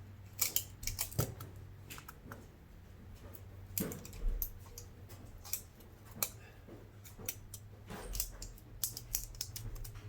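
Irregular small clicks and taps of a precision screwdriver and tools against a smartphone's plastic frame and internal parts as the logic board is loosened and adjusted.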